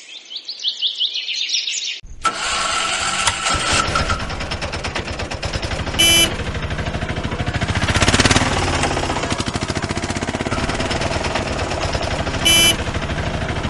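Rapid, even puttering like a small engine running, starting about two seconds in, with a short horn beep twice. Birds chirp at the start.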